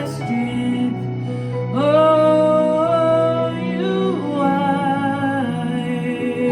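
Slow, soft instrumental worship music over a steady low drone, with a voice singing long held notes without words that glide between pitches.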